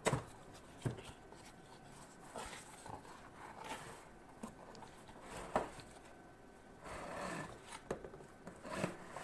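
A cardboard box being opened and its packaging handled: irregular rustling and scraping with a few sharp clicks, the loudest right at the start.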